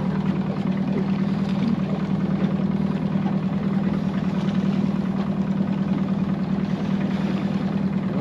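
Boat's outboard motor running steadily at low trawling speed, a constant low hum.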